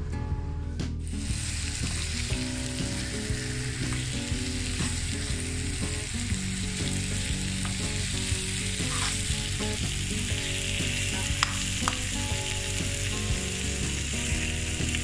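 Prawns in oil and chili paste sizzling in a shallow black pan, the sizzle starting about a second in, while a fork turns them with a few sharp clicks against the pan. Background music with steady low notes plays underneath.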